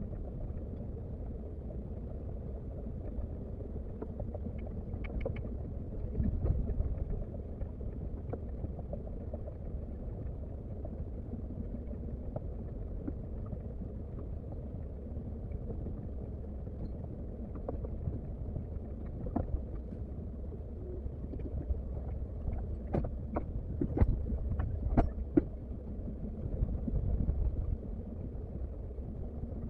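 Komatsu excavator's diesel engine running with a steady low rumble, swelling louder twice, with scattered sharp knocks and clatter, several close together about two-thirds of the way through.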